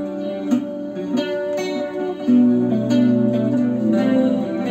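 Clean electric guitar, an Ibanez RG1550 played through a BOSS GT-1000 clean chorus patch, picking single-note solo phrases with each note ringing on into the next.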